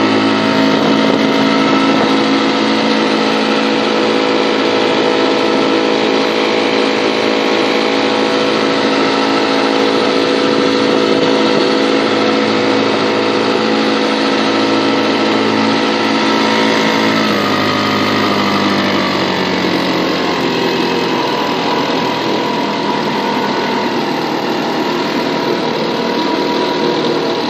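British Seagull Century single-cylinder two-stroke outboard motor running steadily. About two-thirds of the way through, its pitch falls as it slows to a lower speed and keeps running.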